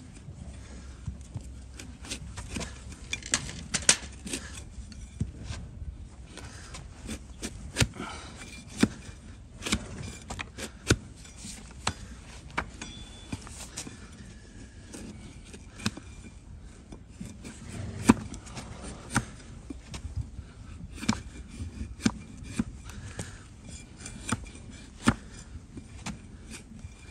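Flat-bladed hoof knife paring slices off a donkey's hoof sole: irregular crisp scraping and clicking cuts, a few per second, with several much louder cracks.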